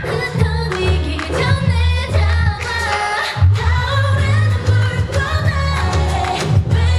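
K-pop dance song played loud through a concert PA: female group vocals over a pop backing track with a heavy, pulsing bass beat. The bass drops out for a moment about three seconds in, then comes back.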